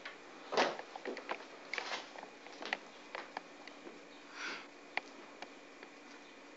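A toddler eating noodles with his fingers: a few short noisy sniffing intakes of breath, about half a second, two seconds and four and a half seconds in, among many small wet clicks of chewing and lip smacking.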